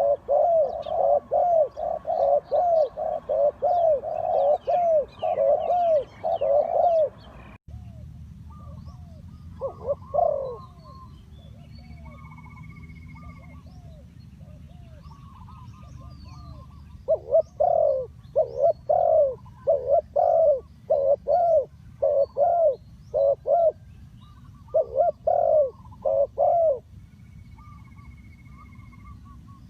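Spotted dove cooing: low notes repeated about twice a second in long runs, with a break in the middle where only a few scattered coos and faint chirps of small birds are heard.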